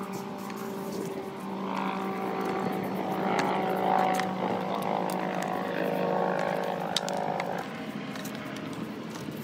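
Dnepr motorcycle engine running at a steady pitch, louder through the middle, then dying away about three-quarters of the way through.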